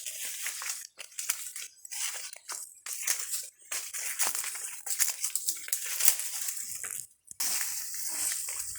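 Irregular scraping and crunching of digging in loose ground, in uneven strokes broken by short pauses, the longest about seven seconds in.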